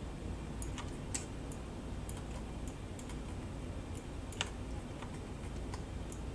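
Irregular, scattered clicks of a computer keyboard and mouse being worked at a desk, over a steady low hum.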